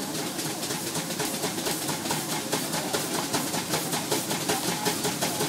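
Steam traction engine working hard under belt load on a brake, its exhaust chuffing in a rapid, even beat.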